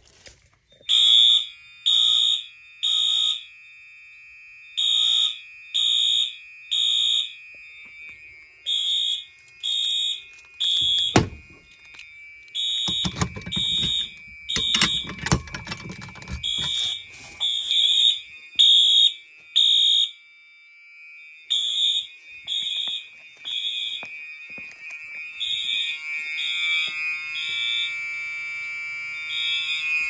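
Fire alarm horns sounding in the temporal code-3 pattern, three short high beeps and a pause over and over, with a steady alarm tone underneath. The system is in alarm from a pulled manual pull station. Partway through comes a knock and a few seconds of rustling handling noise, and near the end the alarm grows louder.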